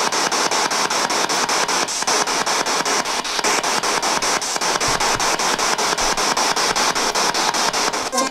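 Ghost-box radio sweeping through stations: a steady static hiss broken by short cuts about six times a second.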